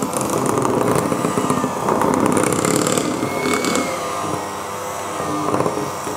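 Kenwood kMix electric hand mixer running on a slow speed, its twin beaters whisking thick cake batter in a glass bowl; the motor runs steadily, easing slightly about four seconds in.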